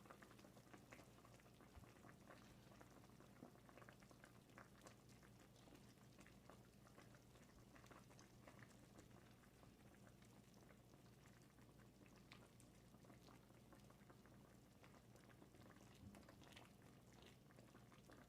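Faint bubbling and popping of a pot of spicy ramen stew with Spam and tofu simmering, a steady stream of small irregular pops.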